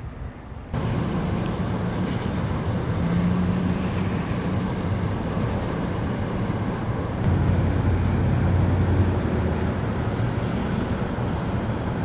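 Road traffic on a snow-covered highway: engines and tyres on the snowy road as a steady noise. It starts suddenly under a second in, and a low engine hum swells as a vehicle passes about two-thirds of the way through.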